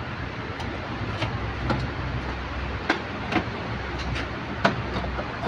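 A steady low machine hum with hiss, and about five sharp knocks scattered through.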